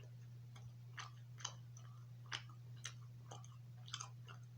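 A person chewing a mouthful of ribeye steak: short, irregular wet clicks and smacks, roughly two a second, over a steady low hum.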